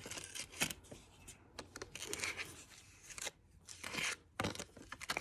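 Tile grout filler being scraped and pressed into the gaps between fireplace bricks with a hand tool: a run of short, irregular scrapes and taps.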